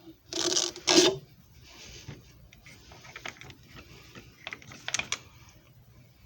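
Mechanical noise from a JFJ Easy Pro disc repair machine: two loud, short bursts with a pitch to them in the first second or so, then scattered sharp clicks.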